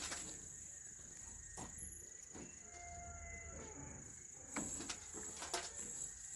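Steady high-pitched insect chirring, with a few scattered sharp clicks and crackles.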